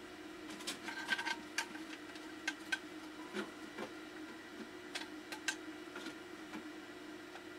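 Small irregular clicks and taps of cables and connectors being handled while a floppy drive is plugged into a computer board, over a steady low hum.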